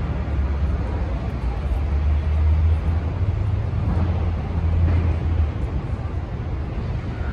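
Street traffic: a steady low engine rumble under a dense haze of city noise, swelling a little about two to three seconds in and again near five seconds.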